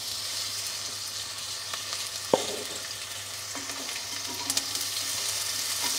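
Sliced red onion sizzling in hot olive oil in a frying pan, a steady hiss that grows a little louder near the end as more onion is scraped in.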